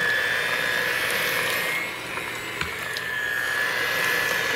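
Immersion blender motor running with a steady whine as it purees chunks of cooked butternut squash in a pot of soup. The whine and the level dip briefly about two seconds in, then pick up again.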